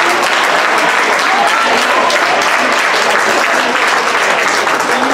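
Audience applauding: many hands clapping steadily, with a few voices faintly over it.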